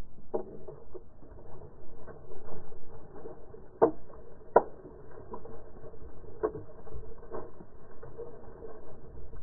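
Water splashing as a hooked speckled trout thrashes in a landing net against the side of a plastic kayak, with irregular knocks and two sharp knocks close together about four seconds in.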